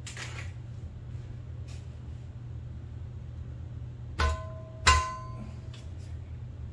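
Two sharp knocks about half a second apart, each ringing briefly with a clear tone, as the desk under construction is struck to nudge it into position. A soft scrape comes at the start, and a steady low hum lies under everything.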